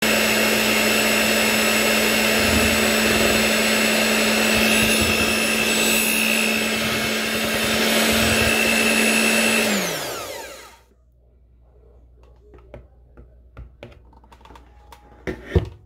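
Electric blender motor running steadily with a whine. About ten seconds in it is switched off and its pitch falls as it spins down. A few faint clicks and knocks follow.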